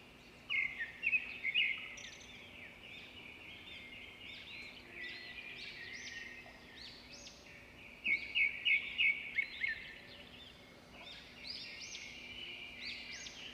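Small birds chirping: many short, quick rising-and-falling calls, with louder clusters near the start and about eight seconds in.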